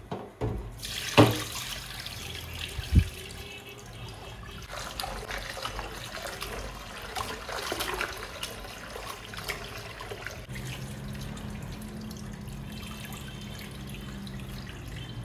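Tap water running into a stainless steel bowl of cut potato strips as hands swish them about to rinse them. A couple of sharp knocks come in the first three seconds.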